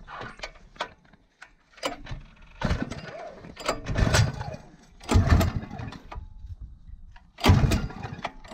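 Recoil starter of a four-stroke petrol generator with a Honda engine being pulled again and again: several short rasping pulls as the engine cranks over without catching. The owner puts the hard starting down to the fuel being nearly used up.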